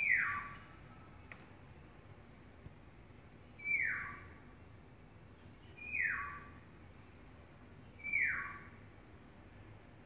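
Black-naped oriole giving four harsh, nasal calls, each sliding steeply down in pitch, spaced two to three seconds apart; the owner takes the calling for courtship.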